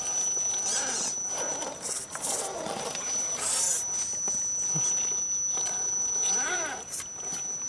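Electric motor of an RC rock crawler whining as the throttle is worked, rising and falling in pitch about six and a half seconds in, over a steady high-pitched whine.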